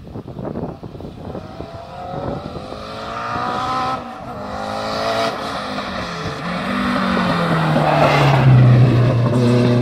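Race car engine at full throttle approaching up the road, its pitch climbing through the gears with gear changes about four and about six seconds in. It passes close by about eight seconds in, loudest there, the pitch dropping as it goes past.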